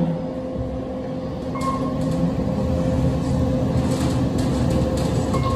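KONE EcoDisc traction elevator car travelling, heard from inside the cab as a steady hum and rumble. A short bump comes right at the start, and two short beeps sound about one and a half seconds in and near the end.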